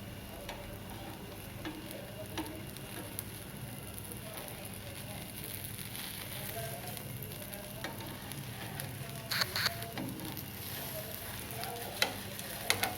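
Gram-flour (besan) pudla batter sizzling steadily in oil on a hot griddle, with a few sharp clicks, a cluster about nine seconds in and two more near the end.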